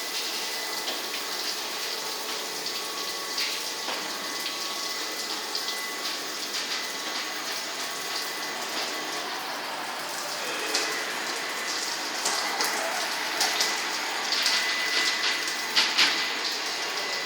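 Touchless automatic car wash spraying water onto a car: a steady hiss of spray with a faint constant whine under it, growing a little louder and busier with splashing spatters in the second half.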